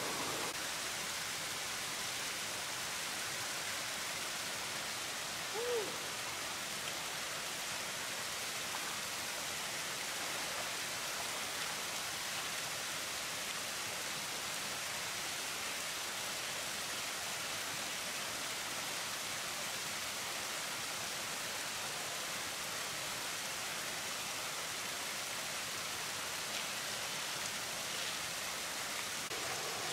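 Steady rush of a shallow stream and small waterfalls, an even hiss with no break. One brief short note sounds about six seconds in.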